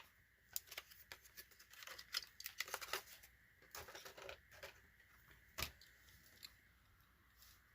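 Faint crinkling, tearing and clicking of a Johnny Lightning plastic blister pack and cardboard card being cut and pried open to free a diecast car, with one sharper snap about five and a half seconds in.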